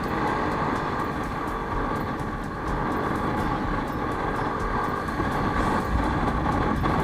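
Steady vehicle noise from riding a motor scooter: a low rumble and road noise with wind on the microphone.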